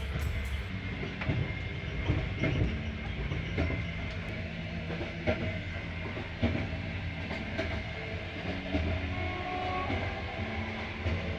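Passenger train running: a steady low rumble of the carriages with irregular clacks and knocks from the wheels on the track.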